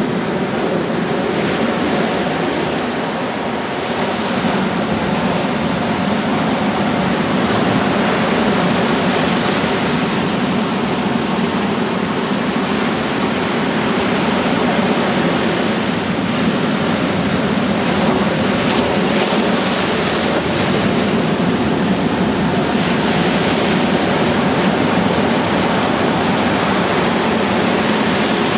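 Ocean surf breaking, a continuous rush of white water.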